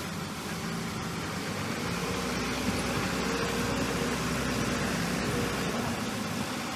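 Diesel engine of heavy earthmoving equipment running steadily, with a low drone that gets a little louder about two seconds in.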